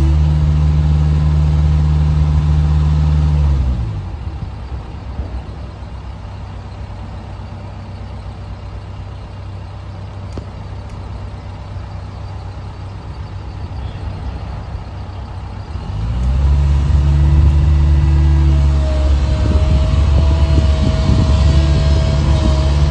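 CAT 306CR mini excavator's diesel engine running at high revs, dropping to a low, quiet idle about four seconds in, then revving back up about sixteen seconds in. A steady whine joins near the end.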